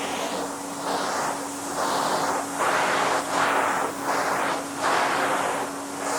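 Vacuum cleaner running: a steady motor hum under a rushing suction noise that swells and fades in regular waves about once a second.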